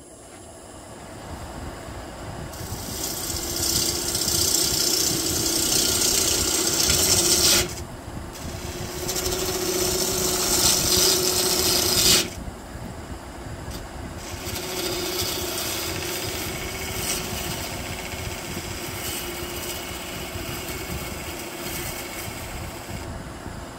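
Wood lathe running while a turning gouge cuts the outside of a spinning white pine bowl: three long passes, each a loud hiss of shavings, the first two breaking off sharply about 8 and 12 seconds in, the last one quieter.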